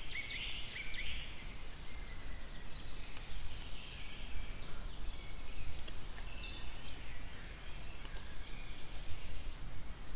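Low steady background hum and hiss with faint high chirps scattered through it, and a few faint clicks.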